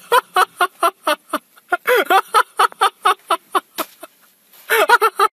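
A person laughing hard in rapid "ha-ha" pulses, about five a second, breaking off briefly about four seconds in and starting again near the end.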